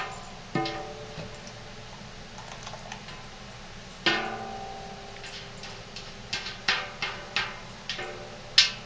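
Spatula knocking and scraping against the sides of a container of lotion: about ten irregular clinks, each ringing briefly, the loudest at the start and near the end.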